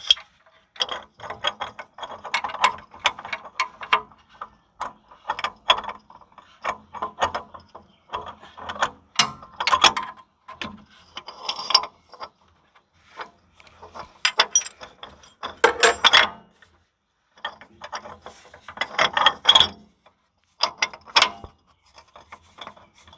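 Metal parts of a Massey Ferguson 5245 tractor's hydraulic pump clicking and clinking as the splined shaft and its gear are worked by hand. The clicks come in quick irregular clusters with short pauses between.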